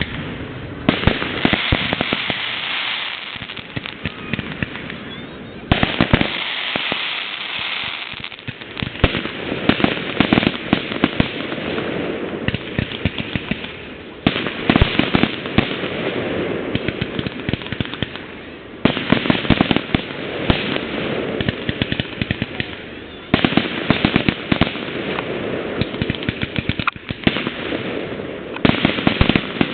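Fireworks display: a dense, rapid run of pops and bangs over a hiss. A new loud volley comes in every few seconds.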